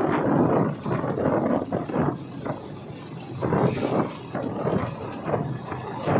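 Wind buffeting the microphone of a moving camera in irregular gusts, loudest in the first couple of seconds and then in scattered surges.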